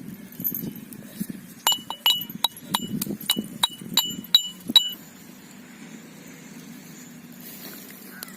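A run of about nine sharp clinks over some three seconds, each ringing briefly at a high pitch, as hard objects are struck together.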